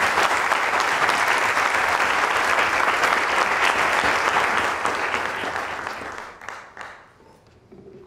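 Audience applauding, loud at first, then thinning and dying away after about six seconds into a few last claps.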